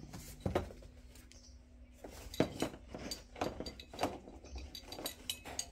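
Light knocks and clinks of household objects being handled: one knock about half a second in, then a string of irregular knocks and clicks from about two seconds on.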